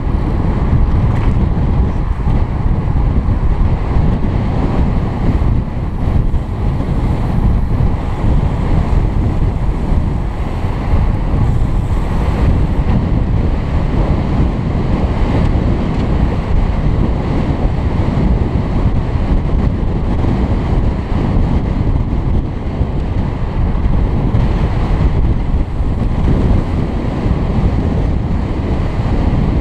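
Wind buffeting a helmet-mounted camera's microphone while riding a road bike at race speed: a loud, steady low rush of noise.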